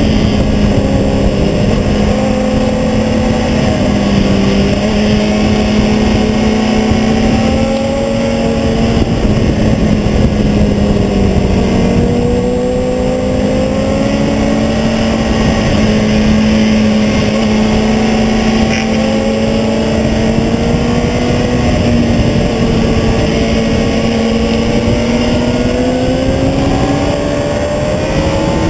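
Sport motorcycle engine running at high revs at speed on a race track, heard from on board under heavy wind noise on the microphone. The engine note holds fairly steady with slight dips, then climbs near the end.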